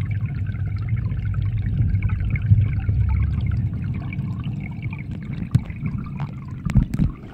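Water moving in a fish tank, heard from a camera in the water: a steady low rumble with faint trickling. A few knocks come near the end.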